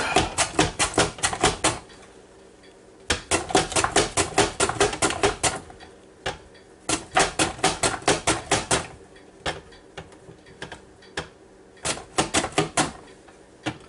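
Zucchini being pushed up and down a KitchenAid mandoline, each pass across the blade a sharp click. The clicks come in quick runs of about five a second with short pauses between, turning slower and more scattered near the end.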